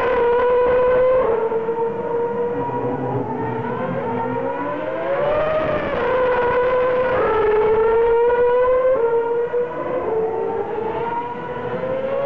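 Several Formula 1 cars' 2.4-litre V8 engines running together: a steady high whine of overlapping pitches that rise and fall as the engines rev.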